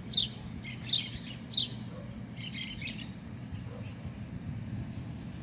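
A small bird chirping: short, sharp, falling chirps, three spaced about two-thirds of a second apart, then a quick run of chirps near the middle, over a steady low background hum.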